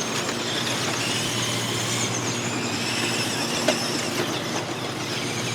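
Several electric RC cars racing on a dirt track, their motors whining at shifting pitches over a steady low hum.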